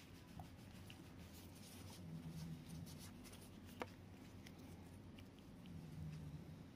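Near silence: room tone with faint soft rustles and light ticks, and one small click about four seconds in.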